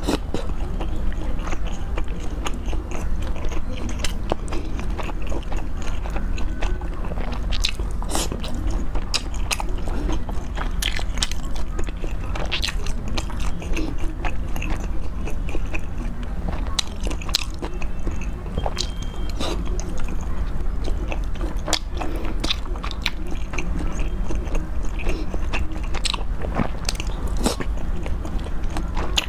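Close-miked eating: wet chewing and biting with irregular crisp smacks and crunches, over a steady low hum.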